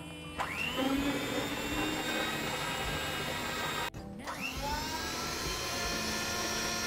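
Electric hand mixer running, its motor whine spinning up and then holding steady as the beaters work thick mascarpone cream. It cuts off just before four seconds in, then spins up again and runs steadily, beating egg whites in a stainless steel bowl.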